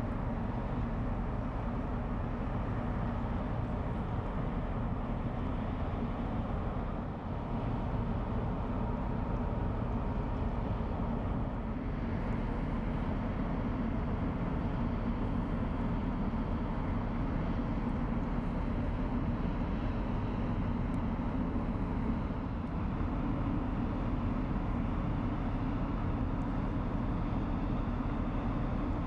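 Steady low diesel drone of a passing Rhine inland cargo vessel, an even rumble that doesn't change.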